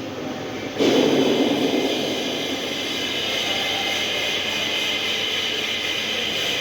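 Steady metalworking noise from work on a steel tank seam: a dense hiss with a high whine through it, jumping sharply louder about a second in and then holding steady.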